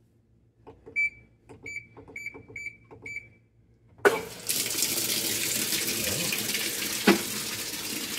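Haier HLP24E portable washer's control panel clicking and beeping as its buttons are pressed, about five short high beeps over two seconds. About four seconds in, water starts rushing into the tub as the washer begins to fill. One knock comes near the end.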